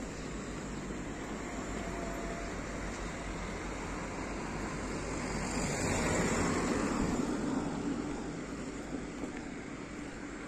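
A vehicle passing, its noise swelling to a peak about six seconds in and then fading away.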